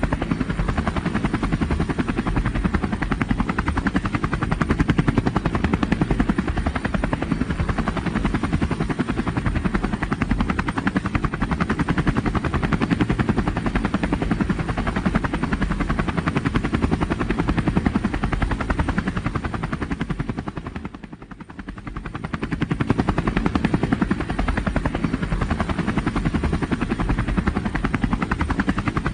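Helicopter in flight, its rotor beating in a fast, steady chop. About two-thirds of the way through, the sound fades briefly, then comes back at full strength.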